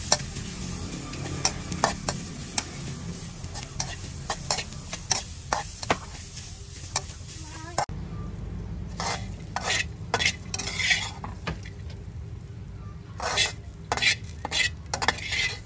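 Metal spatula scraping and clinking against a steel wok in irregular strokes as sliced aromatics are stir-fried, with a low sizzle underneath.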